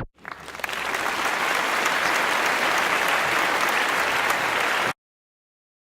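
Crowd applause that swells up over the first second, holds steady, and cuts off abruptly about five seconds in.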